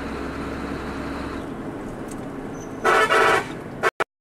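Steady engine and road noise from a moving truck, then a loud vehicle horn honks for about half a second, about three seconds in.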